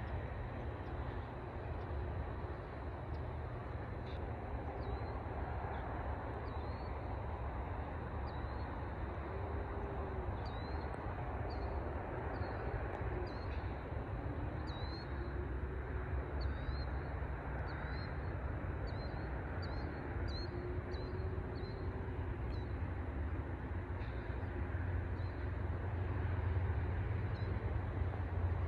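Small birds chirping in short, repeated high calls, thickest between about ten and twenty-two seconds in, over a steady low rumble.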